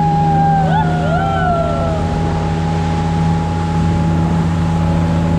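Engine of a vehicle under way, running with a steady low drone. A few faint wavering tones glide up and down in the first two seconds.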